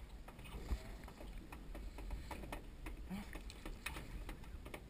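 Faint, irregular small clicks and taps over a low rumble of wind on the microphone, aboard a small boat with a fishing line out.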